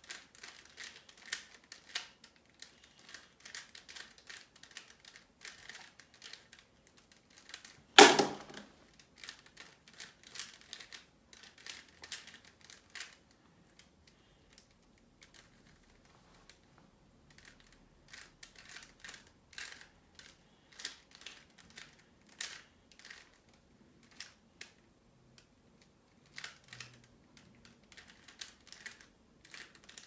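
Plastic 3x3 Rubik's cube being turned rapidly by hand: quick runs of clicking and clacking as the layers snap round, with a short pause about halfway through. One loud knock about eight seconds in.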